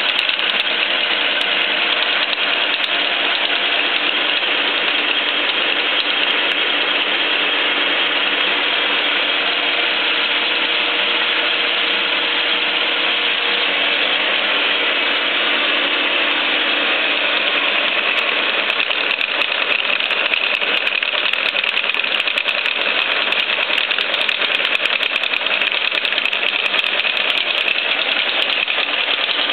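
Sandvik face mill on a Biernatzki milling machine cutting SAE 1045 steel in a facing pass, a steady, even machining noise. About halfway through, the lower notes fade and a high steady note comes up.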